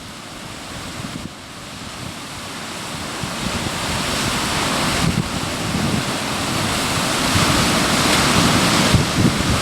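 Atlantic surf breaking on rocks: a steady rushing wash of waves that builds gradually louder, with a low rumble of wind on the microphone.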